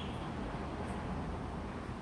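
Steady low background hum and hiss, with no distinct sound standing out.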